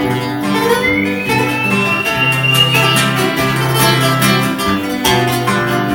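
Acoustic guitars playing an instrumental passage between sung verses of a folk song, with a high sustained note gliding slowly upward about a second in.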